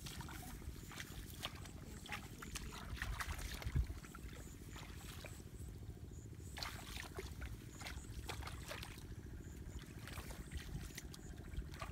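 Feet wading and splashing through shallow water and wet grass, in irregular sloshes, over a steady low rumble.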